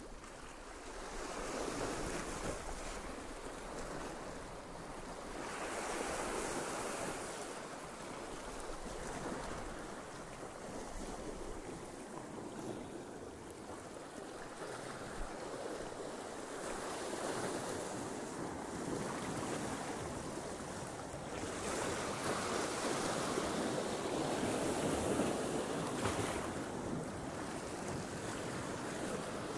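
Sea waves surging and washing over rocks, swelling and easing every few seconds, with wind buffeting the microphone.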